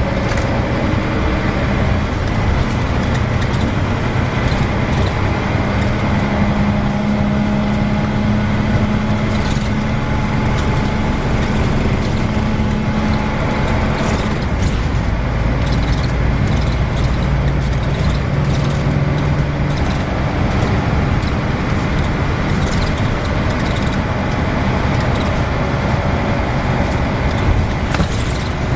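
Volvo B10BLE single-deck bus on the move: a steady engine and road drone, with a whine from its ZF automatic gearbox that shifts in pitch and scattered rattles and clicks throughout.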